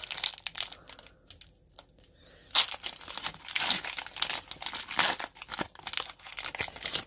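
Foil wrapper of a Pokémon TCG booster pack crinkling and tearing as it is ripped open by hand, with a quieter stretch about a second in, then busier crinkling from about two and a half seconds in.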